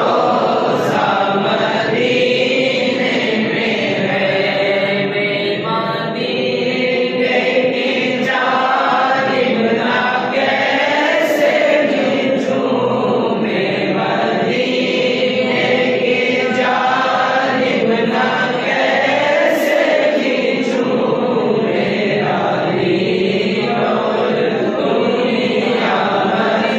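Naat, an Urdu devotional poem in praise of the Prophet, sung by male voice without instruments in a long, unbroken melodic chant.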